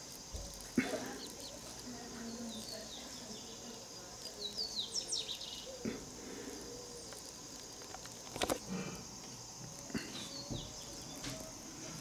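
Outdoor natural ambience: a steady high-pitched insect drone with bird chirps, including a cluster of quick falling notes about four to five seconds in. A couple of sharp knocks, about a second in and past the middle, stand out as the loudest sounds.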